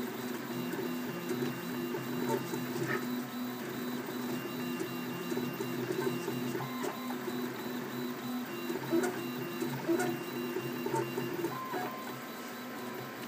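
Prusa i3 RepRap 3D printer printing: its stepper motors whine in steady tones that jump up and down in pitch as the print head and bed move, with small clicks scattered through. The tones ease off a little near the end.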